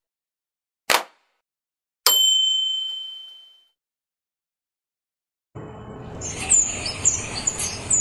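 Subscribe-button sound effects: a mouse click about a second in, then another click with a bell-like notification ding about two seconds in that rings out for about a second and a half. After a silent gap, outdoor background noise starts near the end, with short high chirps like small birds.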